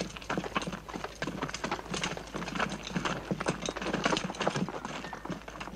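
Many hurried footsteps of a group of men running and then walking over stony ground, a dense irregular clatter of steps.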